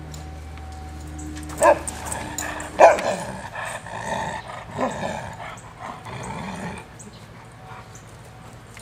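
A husky barks twice sharply in play, about one and a half and three seconds in, then makes a few seconds of drawn-out, wavering yowls that end near the seven-second mark.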